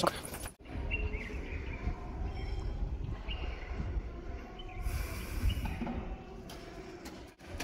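Cold wind buffeting the microphone as a steady low rumble, with a few faint, short high chirps over it.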